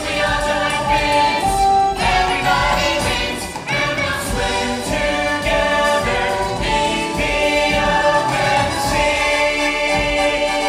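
Show tune from a stage musical: an ensemble of voices singing over full musical accompaniment.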